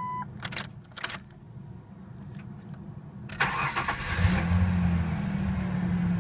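Ford Ranger's 3.0 V6 cranking and catching at about three and a half seconds in, then settling into a steady idle. This is its first start after the fuel filter was changed and the fuel system primed by cycling the key. Before it, a dashboard chime stops just at the start and there are a couple of clicks from the ignition.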